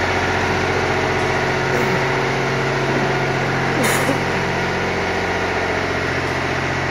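Tractor engine running steadily, with a brief sharp noise about four seconds in.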